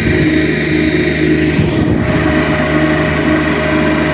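Heavy diesel engine idling steadily, a constant low hum that holds even throughout.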